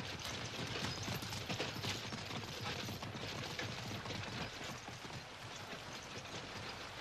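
Horse hooves clip-clopping with the rattle of a passing horse-drawn carriage, a dense run of irregular knocks that grows quieter in the second half.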